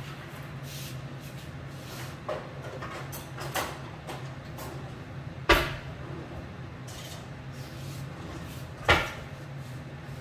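Kitchen knocks and clunks over a steady low hum: two light knocks, then two loud sharp ones about five and a half and nine seconds in.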